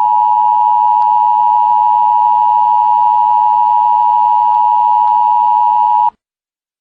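Emergency Broadcast System attention signal: a loud, steady, unbroken electronic tone that cuts off suddenly near the end, the alert that comes before an emergency announcement.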